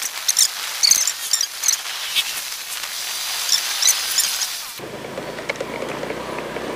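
Honda scooter on the move, with rapid high chirping squeaks over a hiss of wind and road noise. About five seconds in, the sound changes abruptly to the scooter's engine idling steadily.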